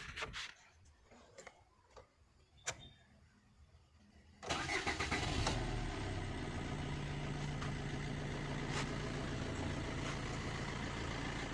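2007 Suzuki Swift's common-rail diesel engine catching after a short crank about four seconds in, then settling into a steady, smooth idle. The quick start and even idle show the long-cranking, rough-running fault cured by a new rail pressure regulator valve (DRV).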